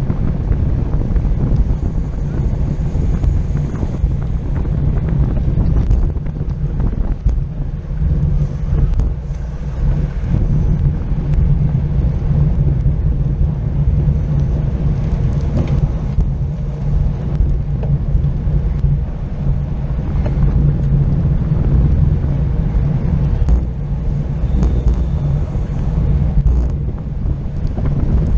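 Wind buffeting the microphone of a camera carried on a racing bicycle at speed in a pack, a loud, steady low rumble with no distinct events.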